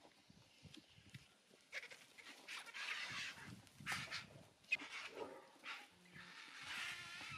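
Vultures squabbling at a carcass: several bursts of harsh hissing and screeching calls, the longest about two seconds in and another near the end.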